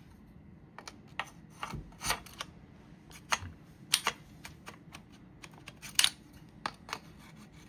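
Irregular small clicks and taps of rifle parts being handled as a 10/22 trigger assembly is worked back into the receiver, the sharpest clicks about four and six seconds in.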